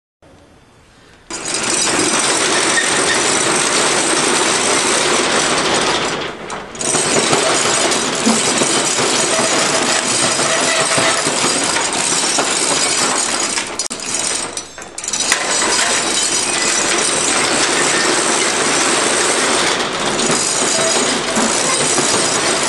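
Dense, continuous clattering of hard objects, starting abruptly about a second in and dropping away briefly twice.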